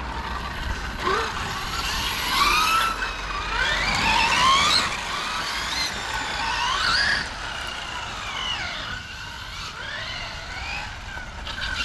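Radio-controlled car's motor whining, its pitch rising and falling again and again as the car speeds up and slows down.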